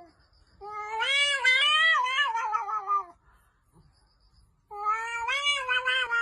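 A cat meowing twice in long, drawn-out calls that waver in pitch, with a short pause between them.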